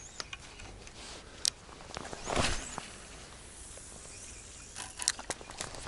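Spinning rod and reel being handled: a short swish about two and a half seconds in and a quick run of small clicks near the end.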